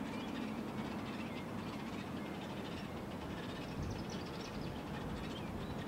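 Steady low outdoor rumble with faint bird calls over it, including a short run of quick chirping calls about four seconds in.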